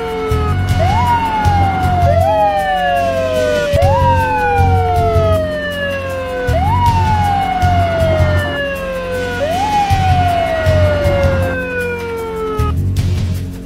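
Police sirens wailing, each cycle rising quickly and falling slowly, repeating about every three seconds, with a second siren overlapping. The sirens cut off near the end, leaving a low pulsing beat underneath.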